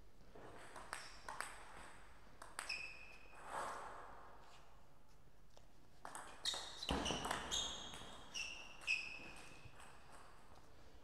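Table tennis ball clicking off rubber paddles and the table, each hit a short sharp ping. A few separate bounces come first, then a quick rally of rapid hits about six seconds in.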